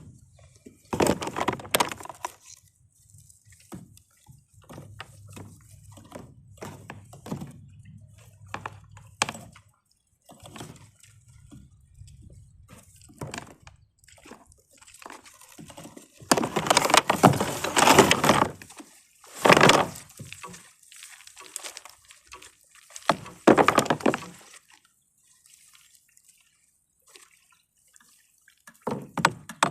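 Water dripping and splashing from a wet cast net being handled and thrown from a kayak, with several louder splashing rushes.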